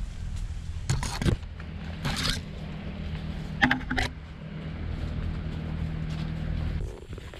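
Leaves and branches brushing and scraping against the camera in three short bursts as the horse walks beneath low jungle canopy. Under them runs a steady low hum that cuts off suddenly near the end.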